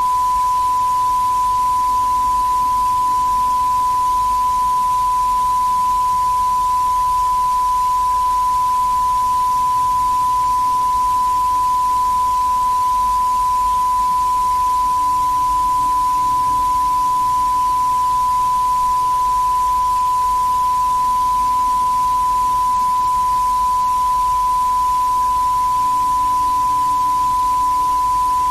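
A continuous, unwavering single tone near 1 kHz: the test tone of an emergency alert broadcast, over a faint hiss of old videotape.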